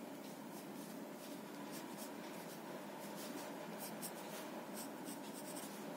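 Soft 10B graphite sketch pencil scratching on drawing paper in short shading strokes, faint at first and coming in quick repeated strokes in the second half.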